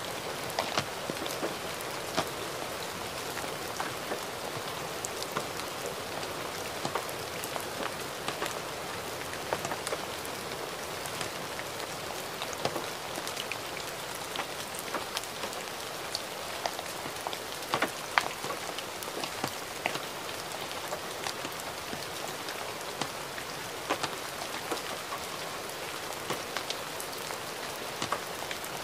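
Gentle rain falling steadily: a constant soft hiss of rainfall with many scattered, sharper individual drops pattering throughout, a few of them louder than the rest.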